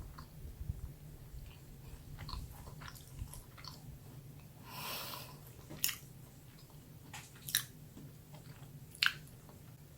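Close-up mouth eating sounds: chewing with wet clicks and smacks, and a short hiss about five seconds in.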